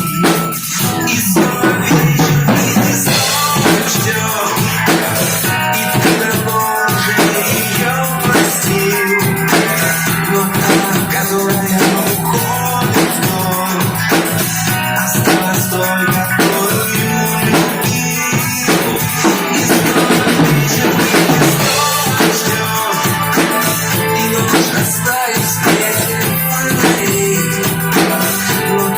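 Instrumental section of a pop song: a drum kit keeps a steady beat under sustained backing instruments, with no singing.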